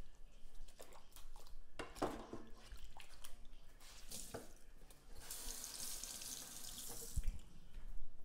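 Kitchen sink tap running for about two seconds as a knife is rinsed under it, after a few light clicks and knocks at the sink.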